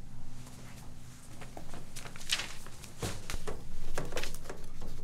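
Sheets of paper rustling and being handled and set down in a desk paper tray: a quick series of brushing, shuffling strokes.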